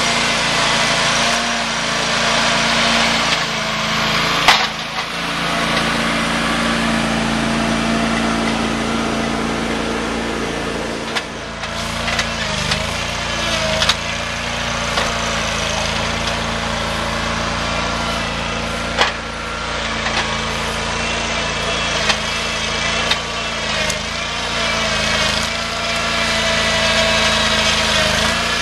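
Two-stroke chainsaw running at high speed, cutting through dead oak, its pitch dipping briefly several times as it bogs in the wood. A few sharp knocks stand out.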